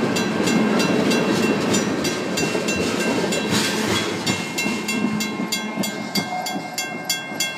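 Crossing signal's mechanical bell ringing steadily, about four strikes a second, over the rumble and wheel clatter of freight tank cars rolling past. The rumble fades as the last car passes, and the bell stops near the end.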